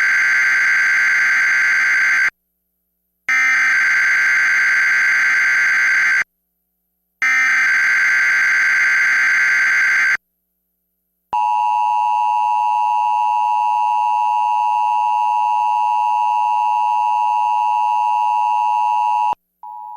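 Emergency Alert System activation tones: three harsh, buzzing bursts of SAME header data, each about three seconds long with a second of silence between, then the steady two-tone EAS attention signal held for about eight seconds. They announce an incoming tornado warning test message.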